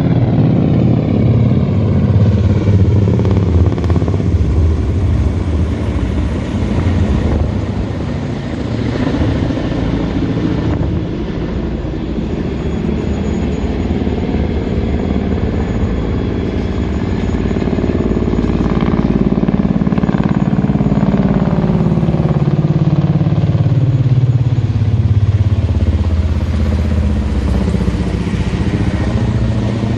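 Military helicopters in formation flying overhead, their rotors and turbine engines very loud and continuous; in the second half the pitch slides down as they pass by.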